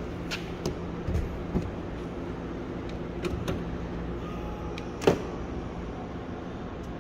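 Aston Martin's driver door being opened: several light clicks from the handle and latch in the first few seconds, then a sharper knock about five seconds in, over a steady low hum.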